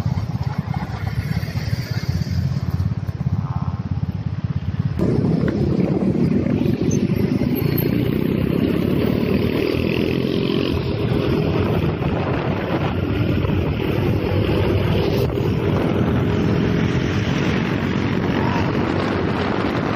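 Motorcycle engine with wind rumble on the microphone: a low, steady sound while stopped, then from about five seconds in louder and fuller as the bike pulls away and rides at speed.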